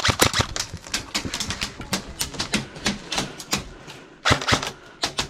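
Airsoft guns firing: an irregular string of sharp cracks, several a second, with a brief lull about four seconds in and then a louder cluster.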